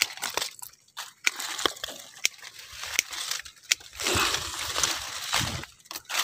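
Durian leaves and twigs rustling and brushing close to the microphone in bursts, with a scattering of sharp clicks and snaps.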